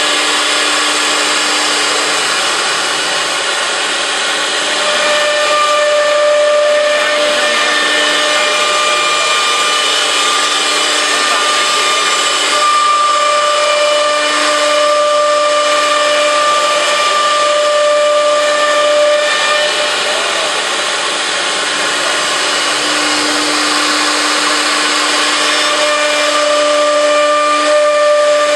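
Four-spindle CNC router cutting grooves in a wood panel: a steady spindle whine made of several held tones over a loud hiss of cutting.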